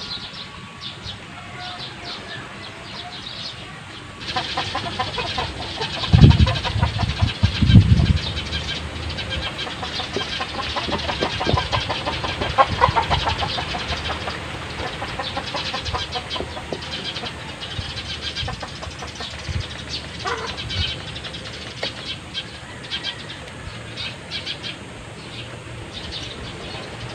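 A hand carving tool cutting and scraping into a wooden butt stock in quick repeated strokes as a carved groove is deepened. Two heavy low thumps come about six and eight seconds in.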